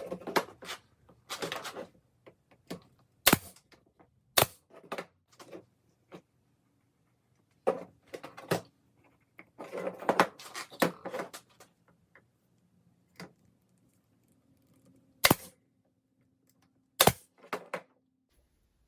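Irregular sharp knocks and clunks of wood and tools being handled and set down at a workbench, some in quick clusters, with silent gaps between.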